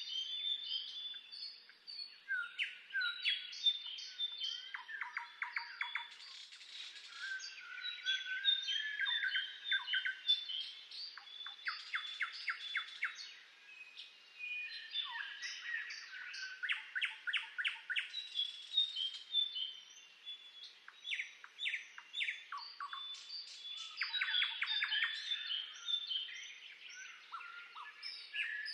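Several songbirds singing and chirping at once, a continuous chorus of short whistled notes, rapid trills and quick ticking note series.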